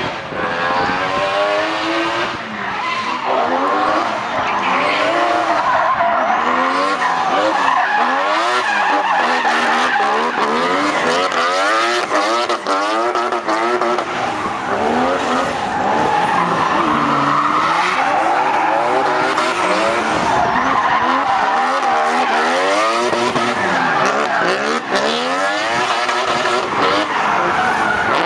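Mazda RX-7 FD3S drift car's engine revving hard, its pitch climbing and falling again and again, over the squeal of tyres sliding sideways through a drift.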